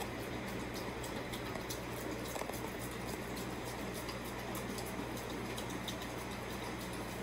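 A puppy eating raw minced meat from a steel bowl: wet smacking and licking with many small quick clicks, over a steady low hum.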